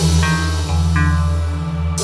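Instrumental music with a sustained low bass line and short higher notes coming in twice over it.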